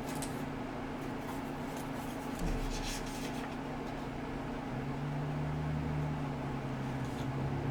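Steady low mechanical hum, with a few brief rustles of packaging in the first few seconds as the desoldering vacuum unit is unpacked.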